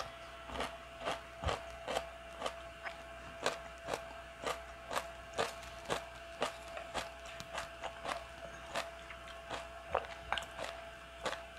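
A person chewing crunchy vegetables close to a lapel microphone, a crisp crunch about twice a second.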